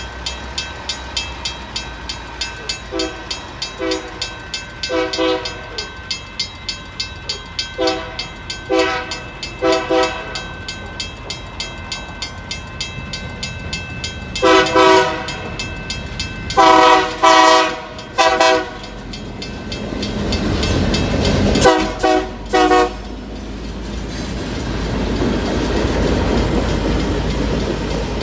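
Union Pacific GP39-2 diesel locomotive's air horn blown in a playful series of short toots and longer blasts, a crew's horn show. Under it the train's wheels click steadily over the rail joints. Later the locomotive's diesel engine rumble swells as it comes close.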